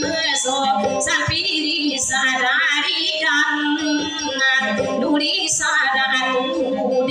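A woman singing a dayunday song in a wavering voice with strong vibrato, accompanied by a strummed acoustic guitar.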